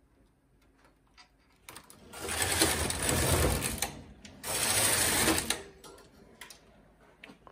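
Carriage of a Silver Reed SK840 knitting machine with its SRP60N ribber being pushed across the needle beds twice: a long pass, then after a brief pause a shorter one, knitting rows of double-bed jacquard. A few light clicks of handling before and after.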